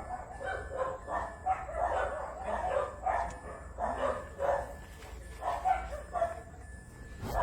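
Dog barking repeatedly, two or three barks a second, with a short break about five seconds in, over a steady low hum.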